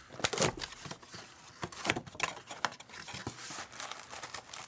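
Plastic shrink wrap crinkling and tearing as it is peeled off a trading card box, in irregular crackles and sharp clicks.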